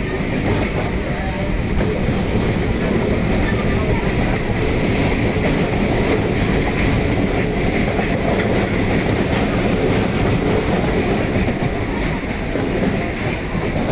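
Suburban EMU electric train running steadily along the elevated track, heard from on board: a continuous, even running noise of wheels and rails.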